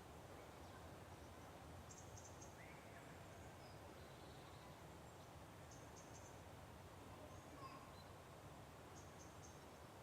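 Faint morning outdoor ambience: distant birds, with small clusters of high, quick chirps every few seconds and a few brief whistled notes over a low steady rumble.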